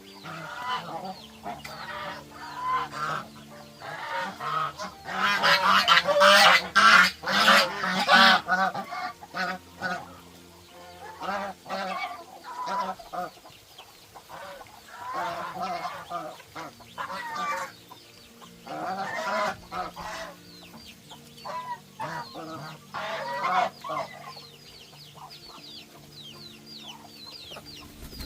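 Farm poultry honking: many overlapping goose-like calls, loudest and most crowded about five to eight seconds in, then thinning to scattered calls.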